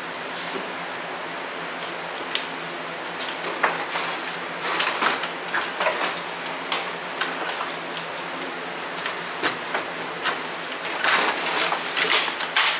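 Irregular clicks, knocks and scrapes of tools and parts being handled while a car's radiator is taken out, over a steady low hum. The knocks grow thicker about four seconds in and again near the end.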